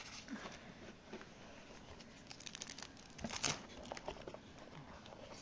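Clear plastic protective film crinkling as a steel watch is handled in its box: scattered crackles, with a quick dense run of them between about two and three and a half seconds in.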